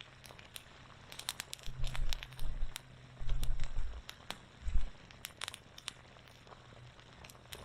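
Wood campfire crackling, with irregular sharp pops and snaps throughout, and a few dull low thumps in the middle.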